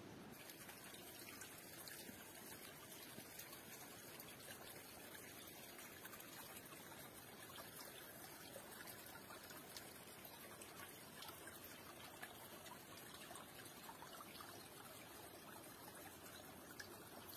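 Near silence: a faint, steady outdoor background hiss.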